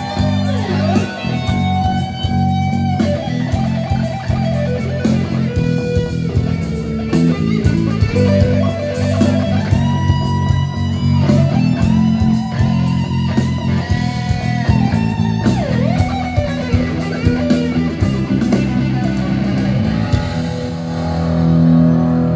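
Live band playing a rock song loudly, with electric guitar over bass guitar.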